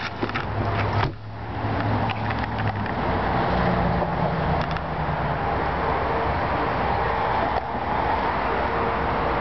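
Motor vehicle running, a steady low engine hum under dense road or wind noise. It breaks off abruptly about a second in, then carries on.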